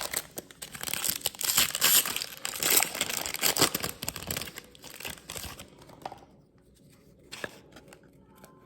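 Trading-card pack wrapper being torn open and crinkled: dense crackling and tearing for about six seconds, then quieter, with a light tap or two near the end.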